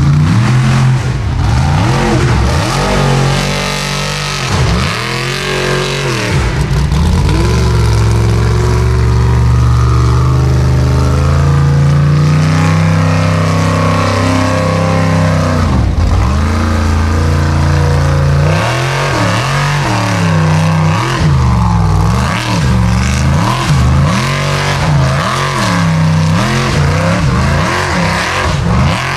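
Formula Offroad buggy engine revving hard on a steep dirt hill climb. The revs sag and climb back a few times in the first half, then rise and fall rapidly again and again through the second half as the driver works the throttle against wheelspin.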